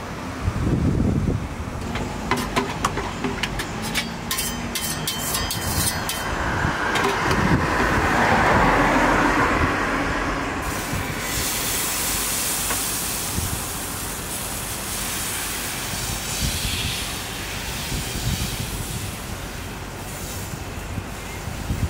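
Crepe batter hissing on a hot crepe griddle as it is ladled on and spread thin with a wooden spreader, over a steady low rumble. A run of light clicks and knocks comes a few seconds in, before the hiss starts about halfway through.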